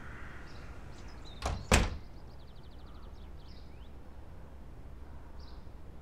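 Front door pushed shut: two quick thuds about a quarter of a second apart as it closes and latches.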